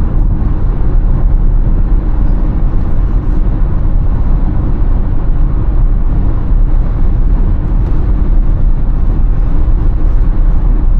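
Steady low rumble of tyre and wind noise inside an electric Tesla Model Y's cabin cruising at freeway speed.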